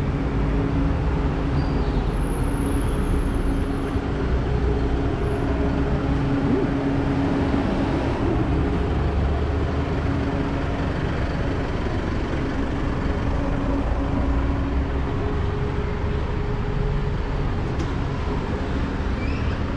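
Street traffic: motor vehicle engines running close by, with a steady engine hum.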